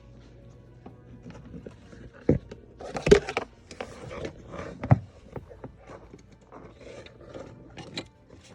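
Plastic clicking, knocking and scraping as an HID bulb with a rubber seal is twisted into the Infiniti M37's fog light housing to find its seating position. The sharpest knocks come about two, three and five seconds in.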